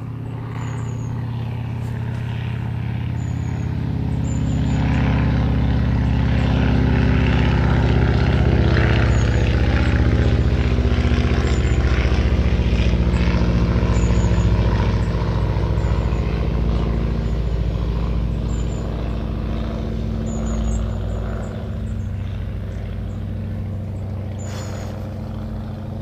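Propeller airplane flying low overhead: a steady engine drone that grows louder over several seconds, holds through the middle, then slowly fades, its pitch dropping slightly as it passes.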